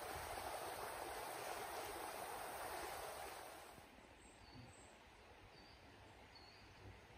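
Steady rush of running stream water, which falls away about halfway through to a much quieter background. A bird gives a few short high chirps in the quieter part.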